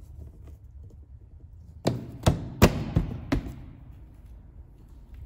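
Five sharp knocks of hard plastic in quick succession, starting about two seconds in and lasting about a second and a half: the car's battery compartment lid being shut and pressed into place.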